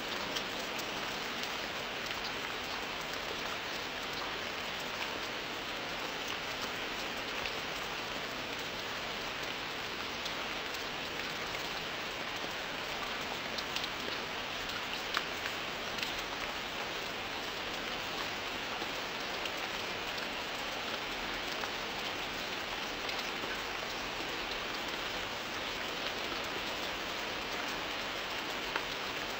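Steady rain falling: an even hiss with a few sharper drop ticks standing out around the middle.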